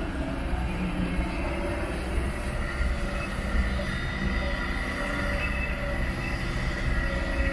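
Kobelco SK200 hydraulic excavator working, its diesel engine running steadily with a deep rumble. A thin, high squealing whine comes in and grows from about the middle onward as the machine swings and digs.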